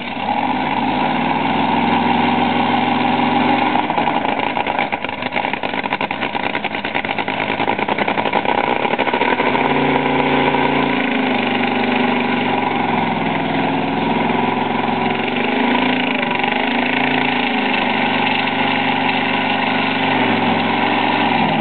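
Top fuel dragster's supercharged nitromethane V8 running in the pits, loud and steady at a fast idle. In the second half its pitch dips and rises several times as the throttle is blipped.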